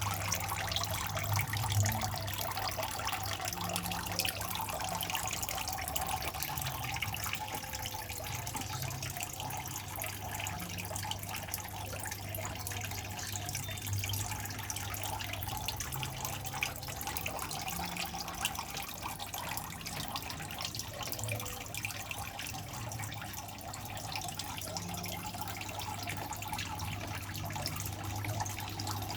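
Water from a small pond filter trickling and splashing steadily into a turtle pond, with a low steady hum underneath.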